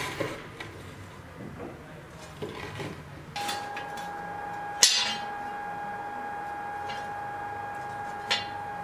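Forged steel sword blade handled against a wooden board, then knocked against a steel anvil: two sharp metallic clanks, the louder about five seconds in, a fainter one near the end. A steady high hum starts about three seconds in and runs underneath.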